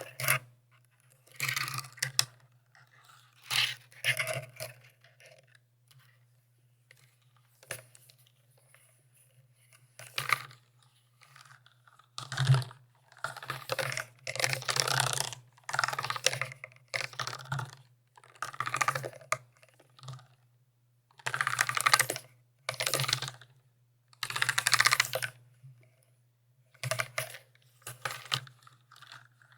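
Mechanical keyboard being typed on in short runs of rapid key clicks, with brief pauses between runs. A faint low hum sits steadily underneath.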